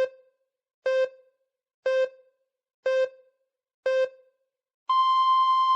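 Electronic countdown pips: five short beeps about a second apart, then a longer beep an octave higher beginning near the end, in the pattern of a time signal.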